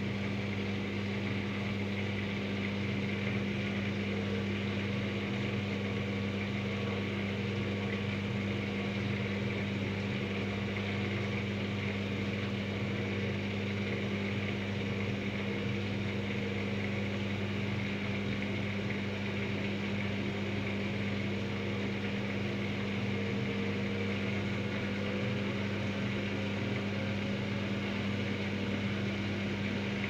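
Daewoo DWD-FT1013 front-loading washing machine running in its service test mode with the door open, the motor turning the empty drum at a steady speed. It makes an even, unchanging hum with a steady low tone.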